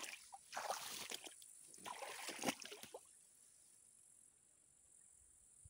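Irregular sloshing and rustling of someone moving in shallow swamp water among tall grass, stopping about three seconds in. A faint, steady, high-pitched insect drone carries on throughout.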